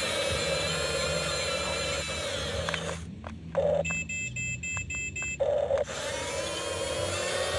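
Small electric motors and gearboxes of a Huina RC excavator whining steadily as it runs. The whine stops for about three seconds in the middle, with a few clicks and faint pulsing tones, then starts again.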